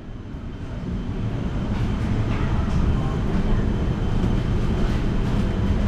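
Steady low rumble of a moving vehicle, fading in over the first couple of seconds, with faint clicks and rattles.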